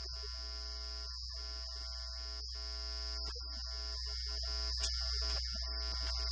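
Buzzy, music-like electronic tones that step abruptly from pitch to pitch every few tenths of a second, over a steady high-pitched whine and a low hum.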